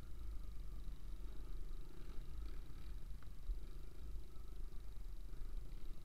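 Dirt bike engine running while riding a woods trail, a low rumble with rapid pulsing and no big revs, mixed with rumble from the ride on the microphone.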